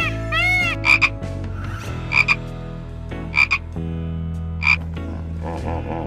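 Dolphin giving short, sharp squeaky chirps, four of them about a second apart, each a quick double pulse. Near the end a lower wavering sound takes over.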